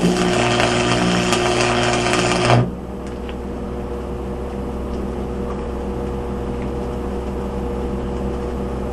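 Stick welding with a 6011 rod on a Hobart Stickmate welder: the arc crackles and sizzles over the welder's buzzing transformer hum, then breaks off suddenly about two and a half seconds in. A steady lower hum goes on after the arc stops.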